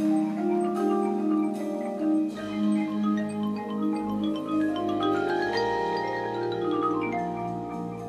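Marching band front ensemble playing mallet percussion, marimbas and glockenspiel, struck notes over long held low chords, with a run of notes climbing in pitch in the second half.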